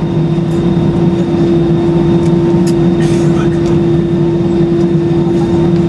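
Cabin noise of an Airbus A320-200 taxiing, heard from a window seat over the wing: the engines at taxi power and the cabin air give a steady hum with a held tone and a lower throb.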